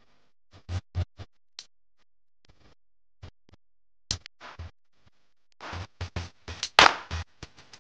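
Socket ratchet on a long extension clicking in short, irregular strokes as a bolt is worked on the air-spring bracket. The clicks come thicker and louder toward the end, with the sharpest clatter just before seven seconds.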